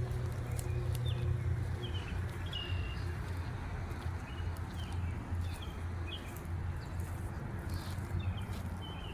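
Short, high bird chirps repeating every second or so over a steady low rumble, with a few faint clicks.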